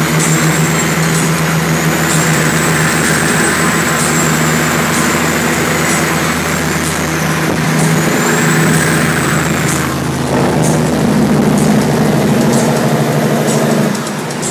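Diesel semi-truck engines running steadily side by side in a tunnel, with a high whistle rising and falling over them. The engine note shifts about ten seconds in and drops a little near the end.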